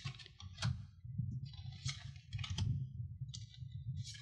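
Digimon Card Game trading cards being flicked off the top of a stack one after another by hand, a short sharp papery snap every half second or so, with a low rumble underneath.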